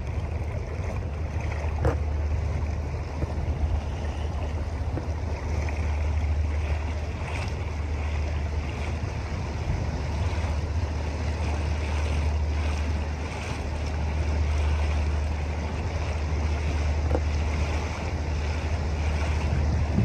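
A steady low rumble under a wash of wind noise on the microphone and moving water, with a single sharp click about two seconds in.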